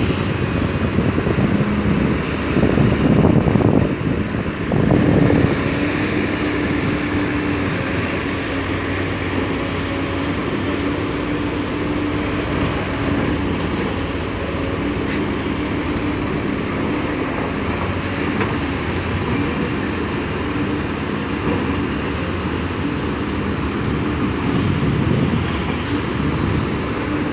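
XCMG crawler excavator's diesel engine running, a steady rumble with a faint whining tone through it, swelling for a couple of seconds a few seconds in.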